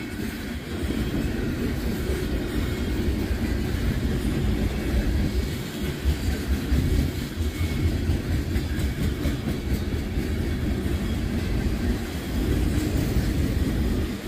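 Freight train cars rolling past close by: a steady rumble with the clatter of steel wheels on the rails.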